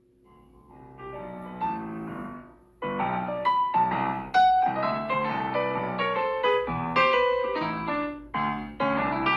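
Piano playing. It starts softly, stops briefly about three seconds in, then goes on with louder, busier runs of notes.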